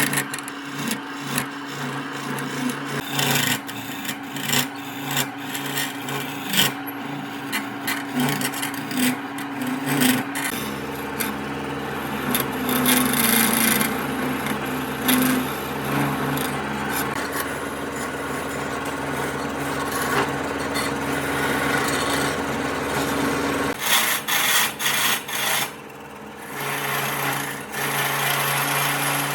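Tools working wood: a dense, rasping scrape against wood over a steady motor hum, with a deeper hum joining from about ten seconds in until about three-quarters of the way through, and the sound breaking up briefly near the end.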